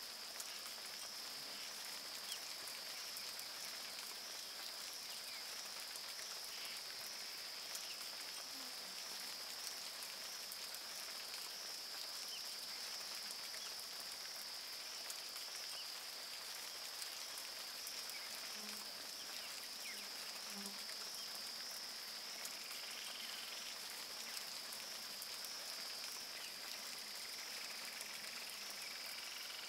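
Tropical rainforest ambience: a steady, high-pitched chorus of calling animals over an even hiss, with a few faint calls here and there.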